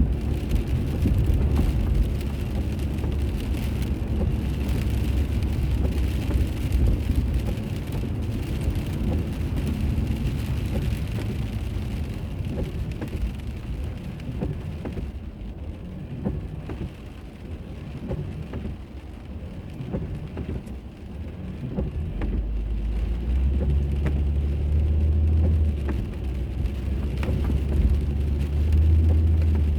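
Car driving, heard from inside: steady road and tyre noise over a low rumble. The noise dies down around the middle, then a low drone builds again over the last seven seconds or so.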